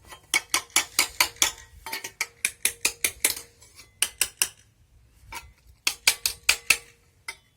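Hammer striking the sheet-steel blank of a homemade fireplace shovel to flatten its bent folds: quick runs of sharp metallic blows, about five a second, broken by short pauses.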